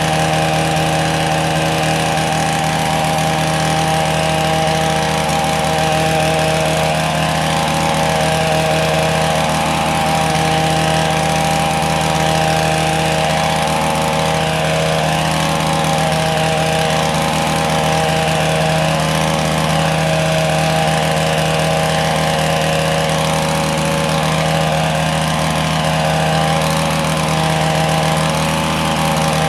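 Small petrol engine running steadily at one constant speed, with no revving up or down.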